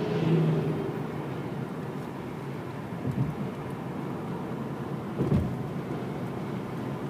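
Car interior road noise while driving: a steady rumble of tyres and engine, with two short low knocks about three and five seconds in.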